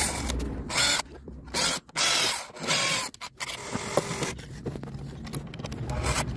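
Cordless drill-driver whirring in several short spurts as it drives screws into a plastic switch box on wood. The spurts come in the first three seconds, followed by quieter handling.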